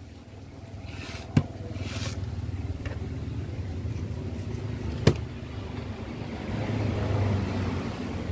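Steady low rumble of a nearby motor vehicle engine, swelling again near the end, with two sharp knocks on the cutting table, the first about a second in and the second about four seconds later, and brief scraping during the filleting.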